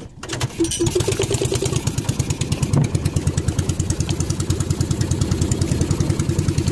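The small engine of an outrigger fishing boat catches about a quarter second in, then runs steadily with a fast, even chugging beat.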